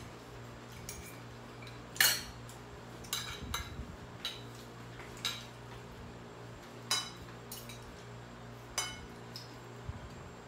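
Spoon and fork clinking and scraping on plates while eating: several sharp clinks a second or two apart, the loudest about two seconds in, over a steady low hum.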